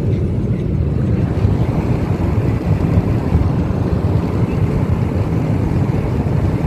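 Steady low rumble of a car driving at speed: road and wind noise.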